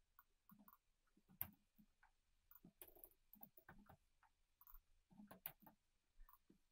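Faint, irregular clicks of typing on a computer keyboard, one sharper click about a second and a half in.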